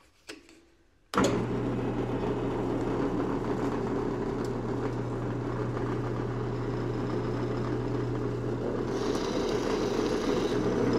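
Drill press motor running with a steady hum, starting abruptly about a second in. Near the end a 1/4-inch brad point bit bores into a walnut board, adding a higher cutting hiss.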